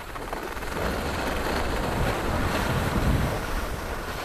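Wind buffeting a GoPro's microphone during a ski run, with the hiss of skis sliding over packed snow. It swells about two seconds in and eases off near the end.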